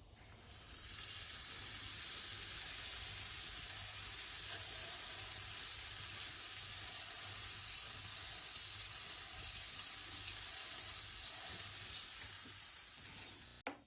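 Butter sizzling in a hot frying pan. The hiss builds over about the first second as the butter melts, stays steady, then eases off near the end.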